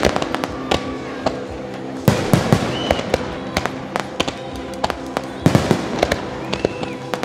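Fireworks display: aerial shells and comets going off in a run of sharp bangs and crackles, with dense clusters about two seconds in and again about five and a half seconds in.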